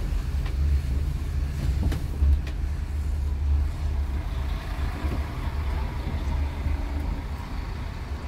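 Setra S 416 UL Business coach heard from inside its passenger cabin while driving slowly: a steady low diesel engine rumble, with a few light clicks in the first couple of seconds.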